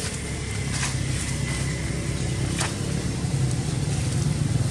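Motorbike engine idling steadily, its low hum growing slightly louder in the second half, with two short clicks about a second in and midway through.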